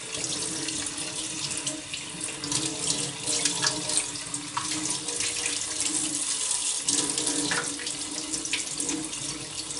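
Cold water running steadily from a kitchen tap into a stainless steel sink, splashing over a whole sea bass being rinsed and rubbed by hand, with a faint steady low hum under the water.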